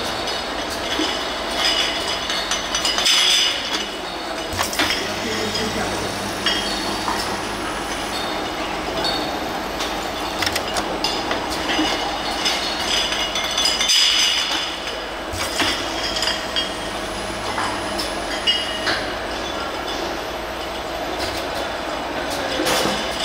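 Dark glass bottles clinking against each other and the guide rails as they ride the conveyor of an automatic four-head gear pump filling line, over the steady running noise of the machine.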